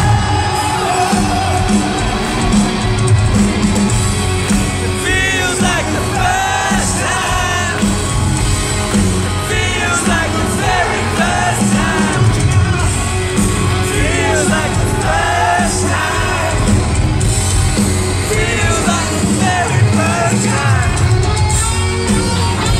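Live rock band playing, recorded from the audience: guitars, bass and drums, with a lead singer's vocal coming in about five seconds in and running through most of the rest.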